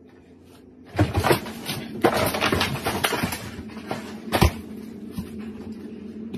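Crashing in a kitchen as a refrigerator tips over: a couple of heavy knocks, then a burst of clattering and rattling, and one sharp bang about four seconds in.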